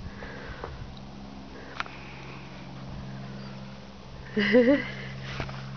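Steady low hum with a few faint clicks, then about four seconds in a short vocal sound, half a second long, whose pitch wobbles up and down.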